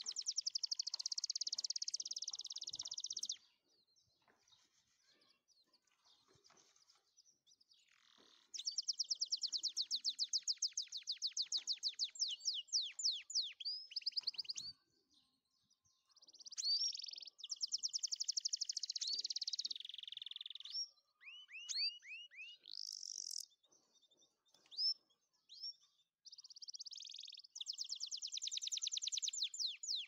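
Canary singing: long, fast, high trills in bouts separated by short pauses, with runs of quick upward-sweeping whistled notes in between.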